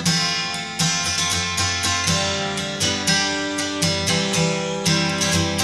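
Background music on acoustic guitar, chords strummed and plucked with clear repeated note attacks.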